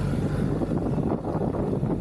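BMW R1300GS boxer-twin motorcycle engine running steadily while being ridden off-road, with wind rumbling on the microphone.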